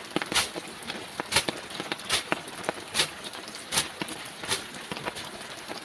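Six sharp swishing strokes through leafy brush, a little under a second apart, as shrubs are cut back by hand. A steady hiss of rain runs underneath.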